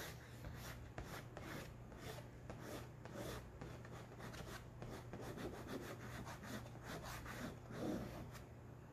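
White chalk scratching across black poster board in repeated short strokes as a line is drawn.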